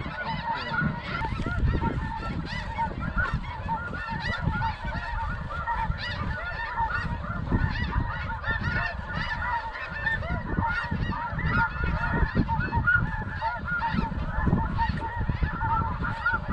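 A dense chorus of snow goose calls: many high, yelping honks overlapping without a break, over a low, uneven rumble.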